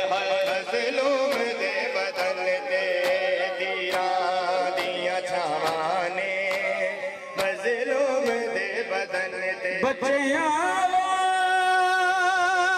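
A Punjabi noha sung by a male voice in long, wavering, drawn-out notes, over repeated sharp slaps of hands beating on bare chests (matam).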